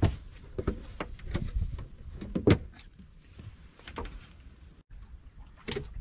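Scattered knocks and clicks of a fish and tackle being handled on a fishing boat's deck, over low wind rumble on the microphone; the loudest knock comes about two and a half seconds in.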